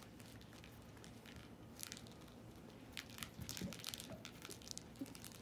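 A cat wrestling with a small toy on a rug, making short crinkling, scratchy rustles. There is a brief cluster about two seconds in and a denser run from about three seconds to nearly five.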